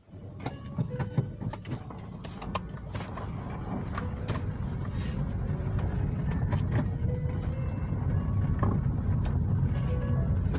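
Car cabin noise while driving: a steady low engine and tyre rumble, with scattered light clicks and knocks.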